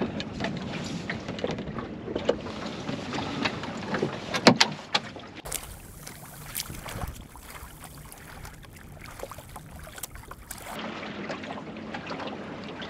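Water washing along the hull of a small wooden sailing dinghy, with wind on the microphone. A few sharp knocks and clicks come from the boat's gear and rigging in the first half, the loudest about four and a half seconds in.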